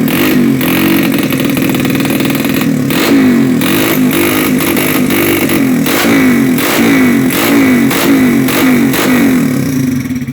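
A 200 cc motorcycle engine running loud, its throttle blipped over and over. From about three seconds in there are sharp surges roughly twice a second over a steady pulsing note, and the engine dies away at the very end.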